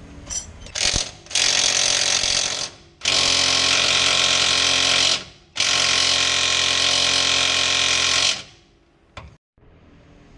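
Impact wrench hammering at suspension bolts on a car's front lower arm, in three bursts of about one to three seconds each with short pauses between, to loosen the bolts.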